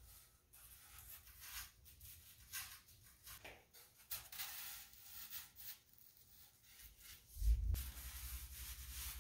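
Faint rubbing and sliding of foam-core frame pieces being handled and laid out on brown paper on a workbench. A low thump comes about three-quarters of the way in, followed by a steady low hum.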